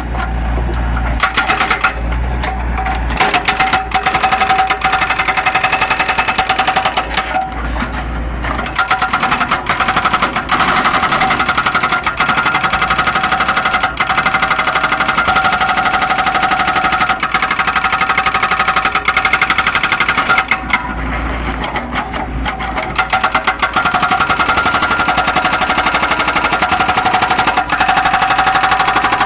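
Zoomlion excavator working, its engine running with a fast, continuous clattering rattle and a steady whine over it. A few times the sound briefly turns deeper for a second or two.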